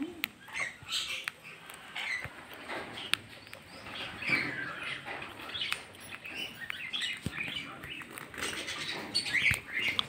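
Parrots (sun conures and red lories) making short, high chirps and squeaks over and over, with a few quick wing flaps and clicks among them.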